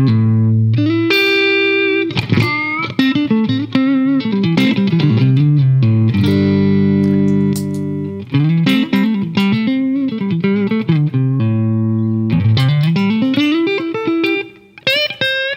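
Electric guitar, a Fender Stratocaster, played through a tube amp: plucked chords and single-note lines, with one long held chord about halfway through. The Fairfield Circuitry Accountant compressor is on at first and switched off partway through, leaving the straight amp tone.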